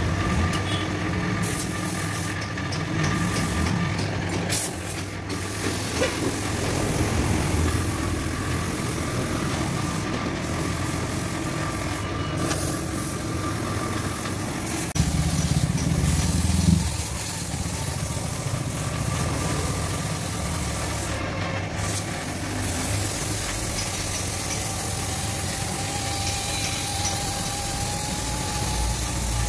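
Air compressor running steadily, with the hiss of a spray-paint gun blowing paint; the hiss breaks off briefly several times.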